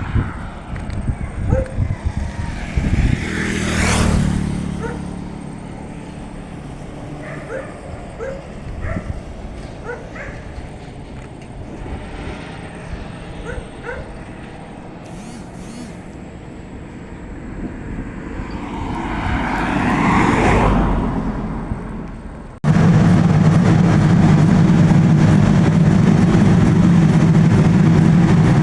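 Outdoor ambience with two vehicles passing, each growing louder and then fading, and short faint chirps between them. Near the end it cuts abruptly to a loud, steady, low engine hum.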